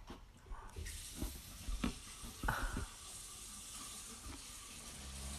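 A steady rushing hiss starts suddenly about a second in, with a few short knocks over the next two seconds.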